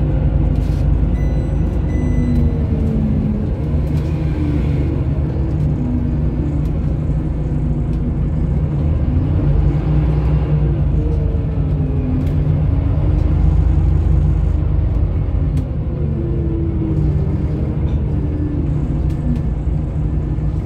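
Scania L94UB bus heard from inside the passenger cabin while under way: its rear-mounted diesel engine and drivetrain give a steady low rumble, with a whine that rises and falls several times as the bus accelerates, shifts and slows. There are occasional small clicks and rattles, and two short high beeps near the start.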